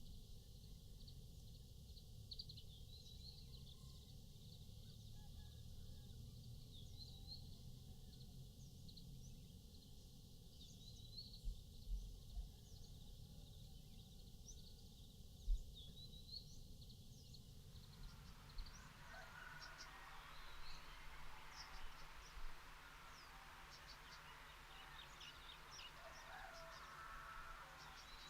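Birds chirping faintly in short, high calls, growing busier in the second half, with a few low thumps around the middle.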